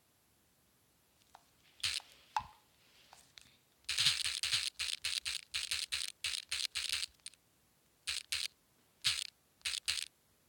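Short, sharp taps on a phone, typing a message: a few at first, then a quick run of about four a second for some three seconds, then a few pairs of taps near the end.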